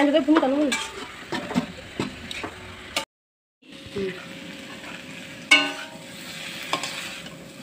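Food sizzling as it fries in oil in a steel kadai, while a metal spatula stirs and scrapes against the pan. There is a brief cut to silence about three seconds in, and a sharp metallic clink about five and a half seconds in.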